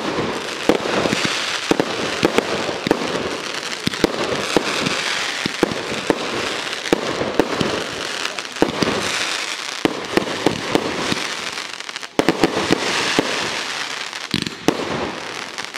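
Pyrotechnic fireworks display: many aerial shell bursts banging in quick succession over a steady hiss and crackle, with a brief lull about twelve seconds in.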